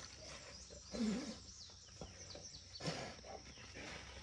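A trapped wild boar hog gives low, throaty grunts, once about a second in and again near three seconds. Small birds chirp faintly in between.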